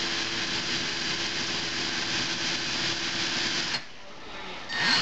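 Cordless drill running steadily as it bores a pilot hole with a very small bit. It stops suddenly about four seconds in and starts up again just before the end.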